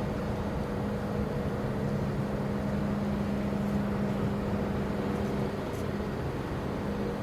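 Steady low drone of ship engines and machinery, with an unbroken hum that holds one pitch.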